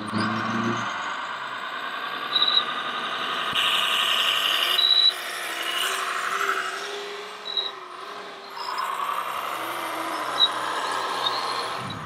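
Radio-controlled scale articulated dump trucks driving, their electric drive motors and gearboxes whining and shifting in pitch as they speed up and slow down, with short high squeaks about every two to three seconds.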